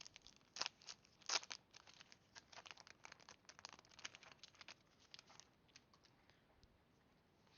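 A foil Pokémon card booster pack wrapper being torn open and crinkled: a rapid run of crackles and rips. The sharpest are in the first second and a half, then they thin out and fade by about six seconds in.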